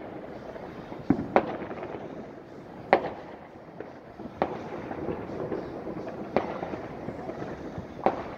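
Distant fireworks going off: a sharp bang every second or two over a steady background of crackling and popping.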